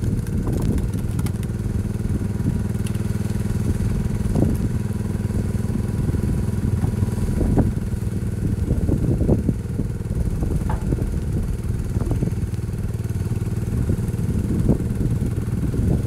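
A 1975 Case 224 garden tractor's engine running steadily, powering a homemade hydraulic log splitter, with scattered sharp knocks and cracks as logs are split.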